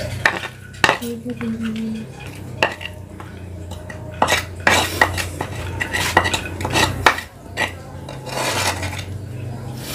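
A spoon scraping and clinking against a cobek, a mortar, as ground chilli sambal and fish are pushed out of it onto rice: sharp clicks at irregular intervals with a few longer scrapes.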